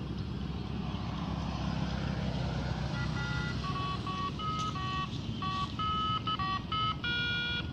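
A steady low rumble, joined about three seconds in by a quick run of short electronic beeps that step up and down in pitch like a tune, ending in a longer held note.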